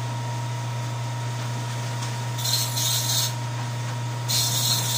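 Steady hum of a large-format sublimation printer that is still switched on and running, with a thin constant whine over it. Two short hissing noises of about a second each come about two and a half and four and a quarter seconds in.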